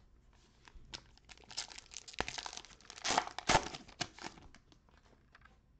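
A Donruss trading card pack wrapper being torn open and crinkled by hand. The crinkling starts about a second in and dies away after about four seconds, with two sharp snaps in the middle.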